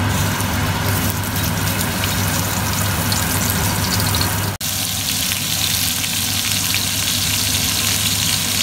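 Floured beef cubes sizzling steadily in hot olive oil in a stainless steel pot as they are seared, the hiss broken once for an instant about halfway.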